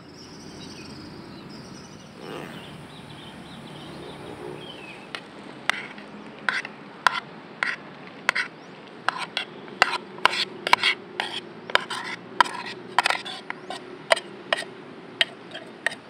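Metal spoon scraping and clinking against a metal camping pot as fried rice is scooped out and served. The spoon makes a quick series of sharp clicks starting about five seconds in, over a steady outdoor background.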